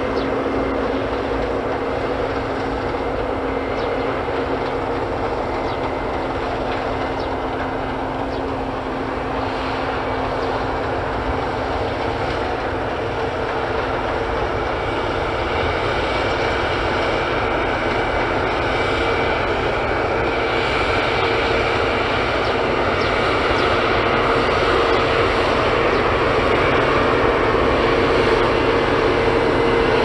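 Claas Lexion 620 combine harvester running under load as it cuts and threshes grain: a steady engine and machinery drone with a constant hum, getting louder over the second half.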